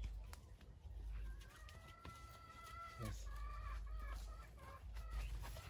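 A rooster crowing: one long held call starting about a second in that drops in pitch at its end, followed by a few shorter notes.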